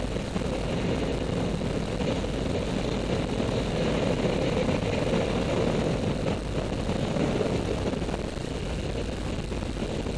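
Steady drone of a propeller jump plane's engine and rushing air, heard from inside the cabin.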